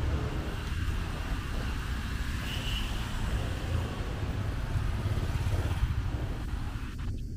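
Street traffic: motorbikes and cars passing on a wet road, over a steady low rumble.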